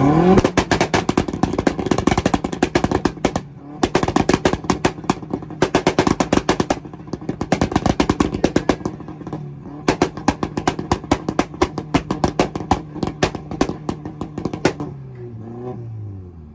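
Audi's engine revved onto a two-step launch limiter and held there, firing a rapid string of exhaust pops and bangs that break off briefly twice. Near the end the revs fall away toward idle.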